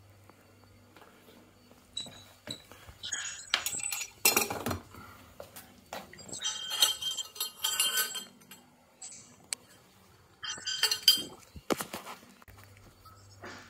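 Metal tools and small boiler parts clinking and clattering as they are handled and set down, in three bursts of a second or two each.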